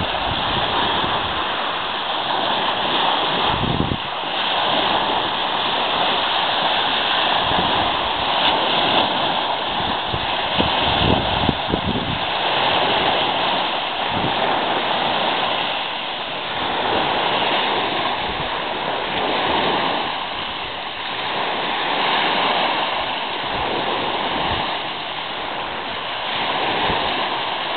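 Small sea waves breaking and washing up a pebble beach: a continuous rushing surf that swells and eases every few seconds.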